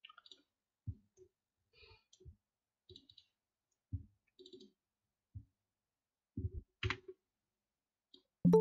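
Computer mouse clicking: quiet single clicks at irregular intervals, about one every half second to a second. A louder sound with a few held tones starts right at the end.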